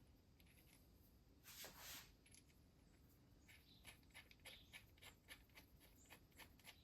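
Faint, quick clicks of a hand ratchet turning a thread chaser through a threaded brass spark plug insert, after a short rustle about a second and a half in.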